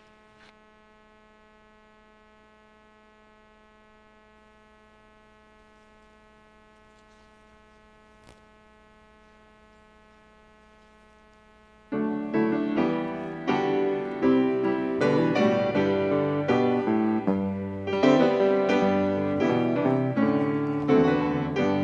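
Faint steady electrical hum from the sound system, then about twelve seconds in a piano starts playing chords as the introduction to a hymn.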